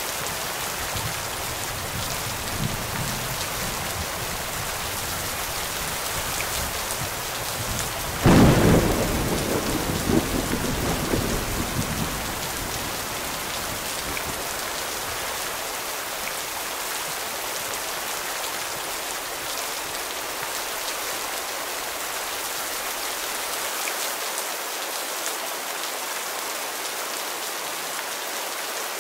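Steady rain falling, with a sudden thunderclap about eight seconds in that rumbles away over the next few seconds.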